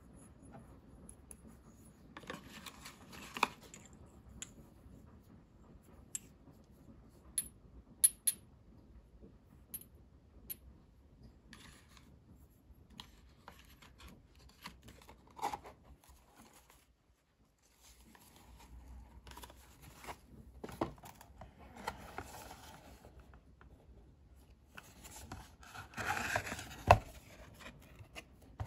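Close handling of paper and cardboard packaging: rustling as small boxes are closed and a cardboard box's flaps are folded open, with scattered sharp clicks and taps, a few of them loud.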